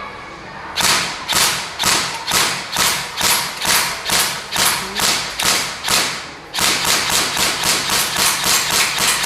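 Specna Arms SA-E06 Edge electric airsoft M4 carbine firing single shots, each a sharp crack with a short tail. The first shots come about two a second, and from about six and a half seconds in they come faster, about three a second.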